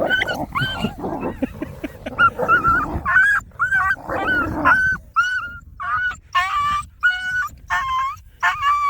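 Dogs in a brief snarling scuffle, one dog growling at another, followed by a run of short, high-pitched whines, about two a second, from the dog that was growled at.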